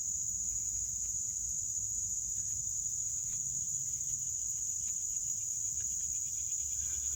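Chorus of insects, a steady high-pitched buzz that runs on without a break.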